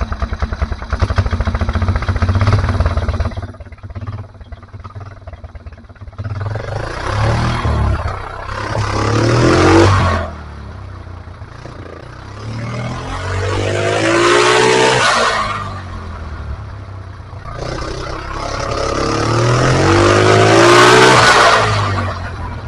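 Freshly rebuilt Polaris Sportsman 335 ATV's single-cylinder four-stroke engine running, then revved three times, each rev rising in pitch and dropping back toward idle.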